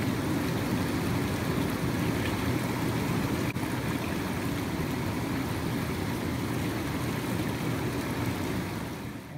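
Turbulent, foaming water churning steadily, a constant rushing noise.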